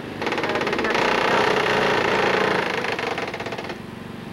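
Machinery running with a fast, even rattle, dropping away in loudness near the end.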